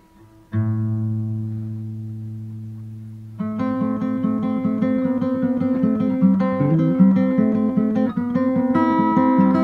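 Acoustic guitar background music: a single chord rings out and slowly fades, then a steady rhythmic strumming begins about three and a half seconds in.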